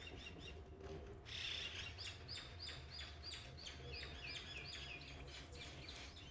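Birds chirping in quick, repeated short notes, starting about a second in, over a faint steady low hum.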